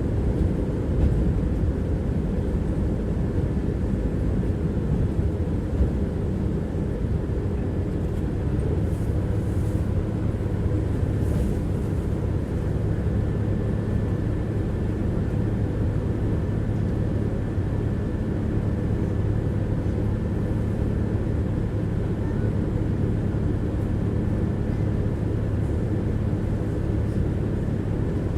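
Tram running along the line, heard from inside the passenger car: a steady rumble of wheels on the rails and running gear, with a steady low hum joining about eight seconds in.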